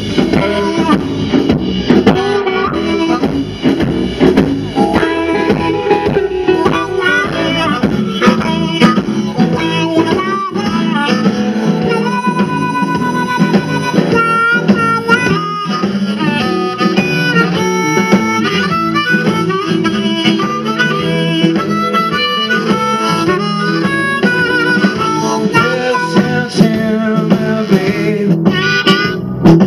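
Live blues band playing: amplified harmonica taking the lead through a microphone over electric guitar and drums.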